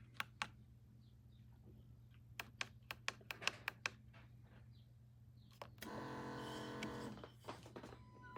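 Single-serve coffee maker being handled, with a series of sharp plastic clicks. About six seconds in, a motor starts humming steadily for a second or so, then a few more clicks.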